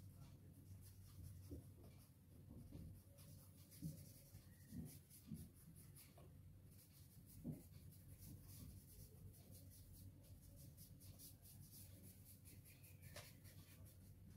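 Faint strokes of a paintbrush scrubbing soft pastel into paper, blending the chalk colour, with a few soft low taps along the way.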